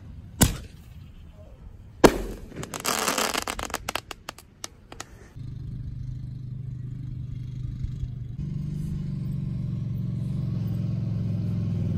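A firework going off: two sharp bangs about a second and a half apart, followed by a few seconds of crackling. Then a steady low engine drone begins and grows louder near the end.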